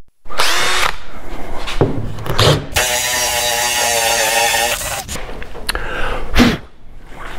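Cordless drill boring a hole through a fiberglass boat hull's gel coat, running for about two seconds in the middle. Short handling knocks come before it, and a brief loud knock near the end.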